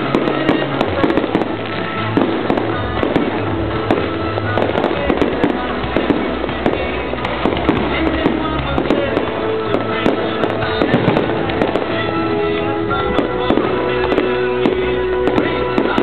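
Fireworks going off in quick succession, many sharp bangs and crackles, over music with held notes and a bass line.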